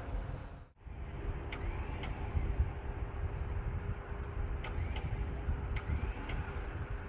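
Badland Apex 12,000 lb electric winch running under load, pulling the stuck pickup out: a steady motor whine over a low rumble, starting about a second in. A few sharp clicks sound while it pulls.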